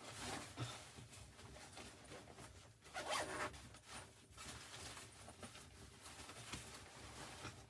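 Faint rasping handling noise in a series of short strokes, the loudest about three seconds in.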